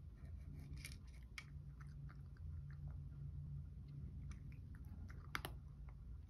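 A cat eating from a bowl, with soft irregular chewing and crunching clicks and one sharper click about five seconds in, over a steady low hum.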